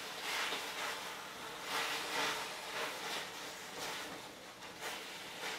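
Mustard cabbage being stirred in a steel wok with a spatula: a steady sizzle with a scrape and rustle of the leaves at each stroke, about one stroke a second.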